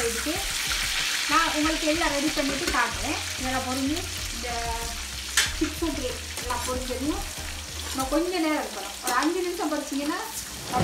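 Breaded chicken schnitzel sizzling in hot oil in a frying pan, with clicks and scrapes from a wooden spatula stirring in the pan. A wordless tune runs on over the sizzle.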